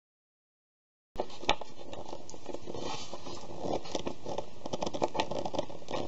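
Light scratching and small metal clicks of a screwdriver turning the clamp screws on a plug's brass blade terminals and of the terminals being handled, over a steady hiss. The sound cuts in abruptly about a second in after dead silence.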